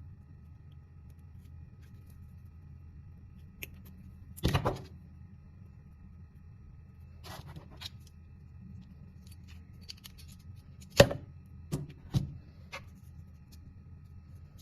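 Handling of wires and fast wire connectors: a few short scrapes, then a cluster of sharp clicks, the loudest about eleven seconds in.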